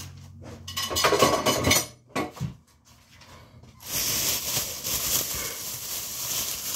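Dishes and utensils clattering on a kitchen counter for about a second, then a single knock. About four seconds in, a steady hiss starts.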